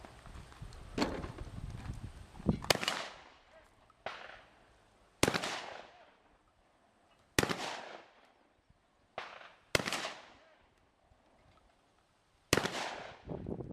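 Shotgun shots fired one at a time, about eight over the stretch, spaced irregularly a second or two apart. Some are loud and some fainter, and each rings out with a short echo.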